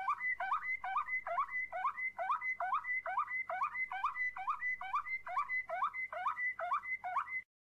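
Canary song in the Moroccan flawta style, as used for tutoring young canaries: one fluty note repeated in an even roll, about three a second, over a steady high whistle. It starts and cuts off abruptly near the end.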